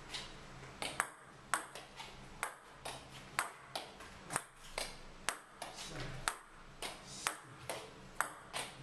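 Table tennis ball hit back and forth in a steady, unhurried rally: sharp clicks of the ball off the paddles and the tabletop, about two a second.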